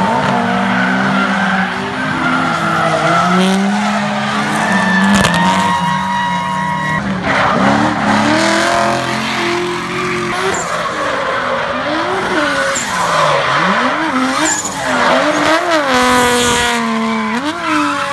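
Drift cars' engines revving hard and dropping back, the pitch swinging up and down quickly several times in the second half, with tires screeching as the cars slide sideways.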